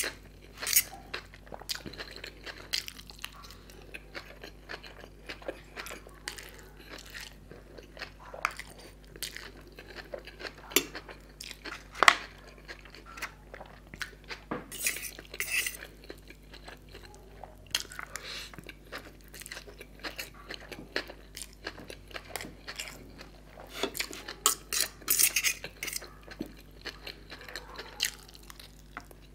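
Close eating sounds: wet chewing of Schezwan fried noodles, with a metal fork clinking and scraping on a steel plate in irregular sharp clicks. One sharp clink about twelve seconds in is the loudest.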